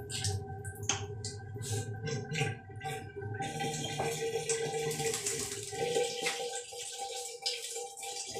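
Water splashing and running low in a tiled shower: broken splashes for the first few seconds, then a steadier hiss, over a faint steady hum.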